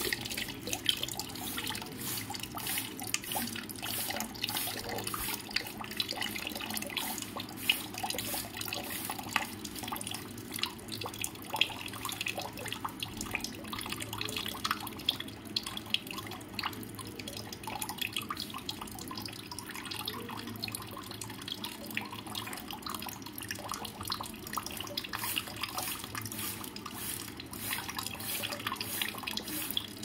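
Steady running water, trickling and splashing with many small drips.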